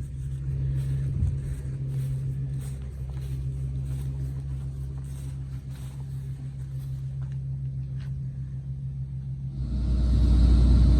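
Large farm machine's engine running steadily with a low hum. About ten seconds in, the sound jumps suddenly to a louder, fuller engine and machinery drone.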